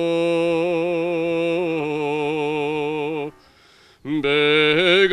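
A man singing a slow Macedonian folk song solo, with no accompaniment. He holds a long note with vibrato on the end of a line, dipping slightly partway through, then stops for a breath about three seconds in. He starts the next line about a second later.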